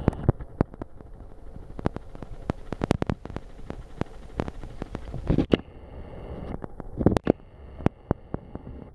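Wind rumbling on the microphone on a small boat at sea, cut by many sharp irregular clicks and knocks, with two louder rushing surges about five and a half and seven seconds in.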